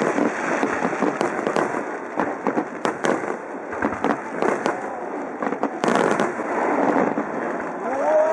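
Aerial fireworks shells bursting one after another, a dense run of bangs and crackling, with a louder cluster of bangs about six seconds in.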